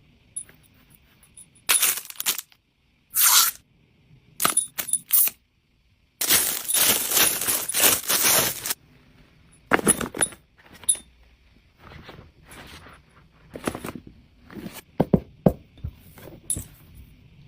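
Packaging being handled and opened: irregular rustling and crinkling with sharp clicks and taps, and a longer stretch of continuous rustling about six to nine seconds in.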